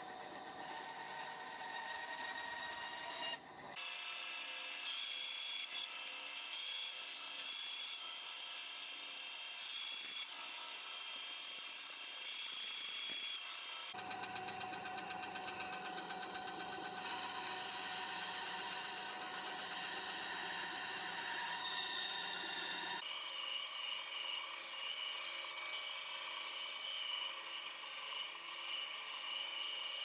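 Bandsaw running and cutting 9mm plywood, a steady whine with several high tones. The sound changes abruptly about 4, 14 and 23 seconds in.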